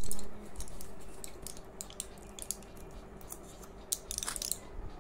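Tablets being pressed out of a foil-and-plastic blister pack: a run of small crackles and clicks, with a denser crackle about four and a half seconds in. A short louder bump comes right at the start.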